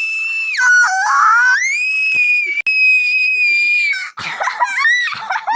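A very high-pitched scream held long, dropping in pitch about half a second in, climbing back up and holding again, then breaking into short yelps near the end.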